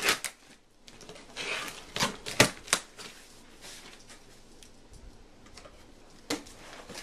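Cardboard shipping box being cut and opened by hand: a brief scraping rustle of cardboard, and sharp knocks and taps, three in quick succession about two seconds in and one more near the end.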